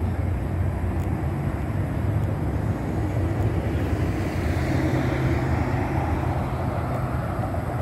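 Street traffic on a city boulevard, a steady rumble of car engines and tyres, with a vehicle passing close about halfway through.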